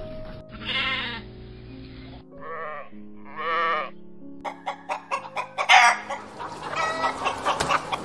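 A quavering animal call, then two wavering sheep bleats around the three-second mark, followed by a dense run of sharp clucks and squawks from a flock of hens over background music.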